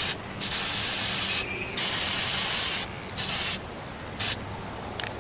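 Aerosol spray paint can hissing in bursts: a short puff, two longer sprays of about a second each, then two quick puffs.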